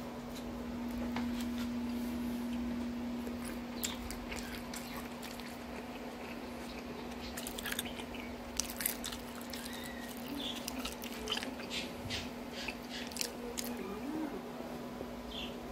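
A person biting and chewing a hot dog in a soft bun, with short wet mouth clicks and smacks that come thicker in the second half. A steady low hum runs underneath.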